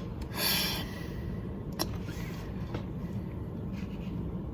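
Steady low hum, with a short breathy rush of noise about half a second in and a single sharp click a little under two seconds in.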